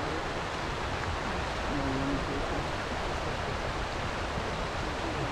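Shallow mountain river, the Yokoyu, rushing steadily over rocks: an even wash of running water.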